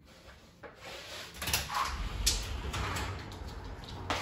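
Footsteps in slippers on a hardwood floor, with several sharp knocks and clicks over a low rumble that sets in about a second and a half in.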